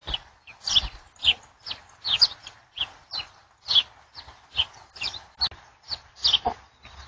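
A dog barking in quick, high-pitched yaps, about two to three a second, each one short and dropping in pitch.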